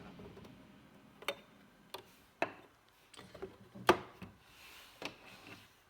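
Scattered light clicks and knocks of a plastic toy microwave set being handled, about seven at uneven spacing with the loudest near the middle.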